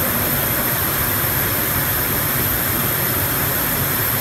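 Steady machinery drone of an automated plating line in a factory hall: a constant even noise with a low hum beneath, unchanging throughout.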